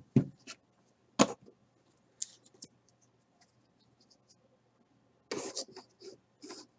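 Trading cards and a folding card display being handled on a desk: a few sharp clicks, one about a second in, faint ticks, then a short run of scraping and rustling near the end.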